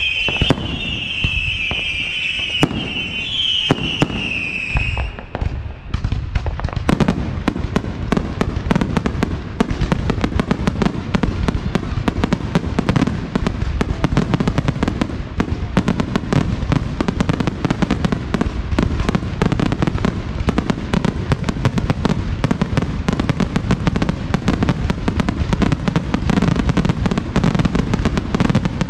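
Fireworks: for the first few seconds three shrill, wavering whistles from rising shells, each sliding slightly down in pitch, over scattered bangs. From about six seconds in, a rapid, continuous barrage of shell bursts and crackle with a deep rumble.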